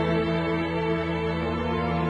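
Slow, sad background score of held, sustained notes.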